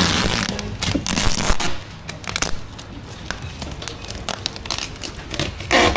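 Plastic bags and wrap crinkling and rustling, with small knocks, as groceries are handled and packed into a cardboard box. It is busiest in the first two seconds, then lighter and more scattered.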